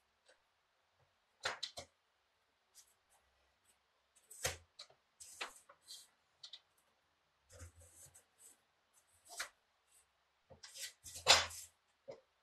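Aluminum angle strips and a metal speed square being handled on a wooden bench: scattered clicks and knocks with short scraping slides, the loudest knock about eleven seconds in.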